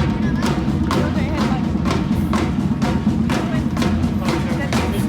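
Music with a steady drum beat, about two beats a second.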